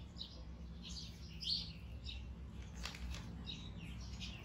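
Repeated short, high-pitched animal chirps, several a second, the loudest about a second and a half in, over a faint steady low hum.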